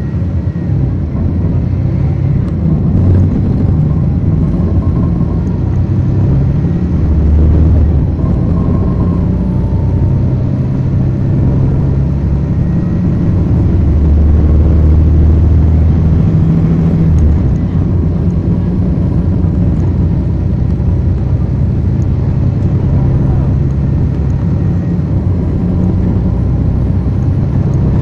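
Cummins ISL9 inline-six diesel engine of a 2010 NABI 40-foot transit bus, heard from the rear of the cabin, running under load. Its low drone rises and falls, swelling about a quarter of the way in and again around the middle.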